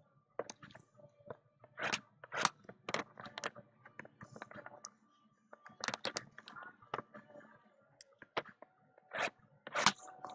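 Cardboard mini boxes of Topps Museum Collection trading cards being handled and torn open: irregular crackles, crunches and scrapes of cardboard.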